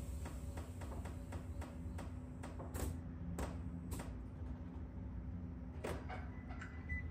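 Air suspension of a Nissan 370Z letting down as it airs out: a string of irregular light clicks and creaks over a low steady hum, thickest in the first few seconds and thinning out after.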